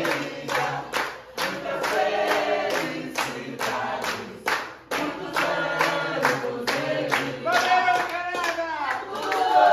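A small group singing a birthday song together and clapping along in a steady beat, about two to three claps a second. Near the end the clapping thins and the voices get louder.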